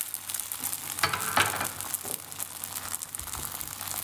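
Oiled layered flatbread dough sizzling steadily on a hot electric crêpe griddle, with two brief louder noises about a second in.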